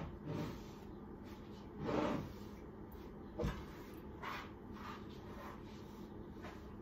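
Wooden chopping boards knocked, slid and set down on a kitchen worktop, a few separate soft knocks with one sharper knock about three and a half seconds in, while a cloth wipes the counter.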